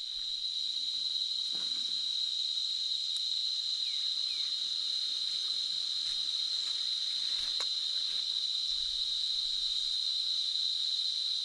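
Insects calling in one steady, unbroken high-pitched drone, with a faint hiss of forest ambience beneath.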